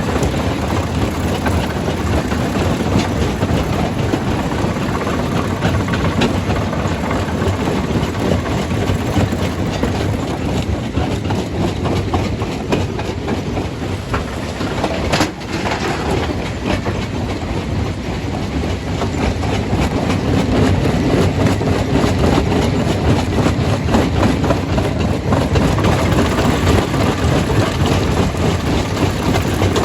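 Stone crusher running as rock is crushed: a steady, heavy mechanical din full of rapid knocks and rattles. It dips briefly about halfway, then runs a little louder.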